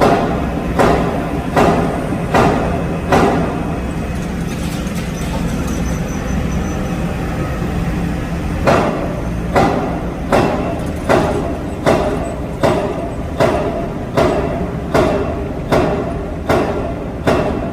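Excavator-mounted hydraulic rock breaker striking weathered rock in an even rhythm, a heavy blow about every 0.8 s, over the steady running of the excavator's engine and hydraulics. The blows stop for about five seconds after the first few seconds and then resume at the same pace.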